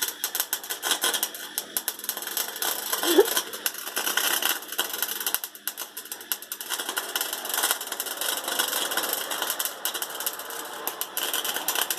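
Electric arc welding: a steady, irregular crackle and spatter of the arc, with no steady tone.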